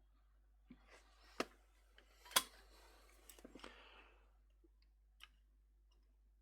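Faint scattered clicks and light taps of small tools and parts being handled during hand soldering, with soft rustling between them. The sharpest click comes about two and a half seconds in.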